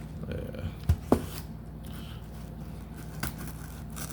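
Trading card pack being handled and opened: two sharp clicks about a second in and another near the end, with light rustling over a low steady hum.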